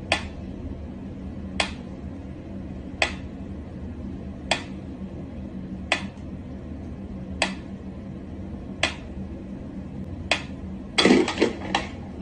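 Mechanical pyramid metronome ticking at a slow tempo, one sharp tick about every second and a half. Near the end a short burst of louder knocks and thumps breaks in.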